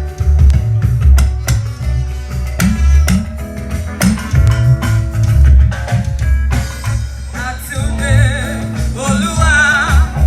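Church band playing a processional hymn: a loud bass and drum beat under guitar and held chords, with singing voices coming in about three quarters of the way through.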